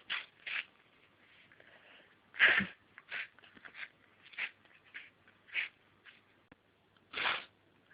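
A woman sniffing and catching her breath in about a dozen short, sharp intakes through a hay-fever-congested nose, the sneeze stuck and not coming; the loudest breaths come about two and a half seconds in and near the end.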